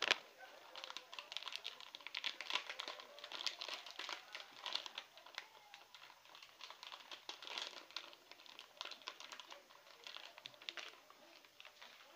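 Packaging crinkling and crackling as it is handled, in irregular clusters of quick crackles, with one sharp click right at the start.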